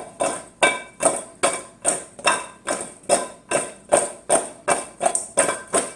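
Okra pods being mixed with olive oil, salt and pepper in a container, knocking against it in a steady rhythm of about two and a half knocks a second, each with a brief ring.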